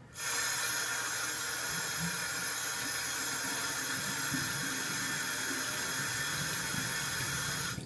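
A steady, even hissing noise that cuts in abruptly and stops abruptly about eight seconds later.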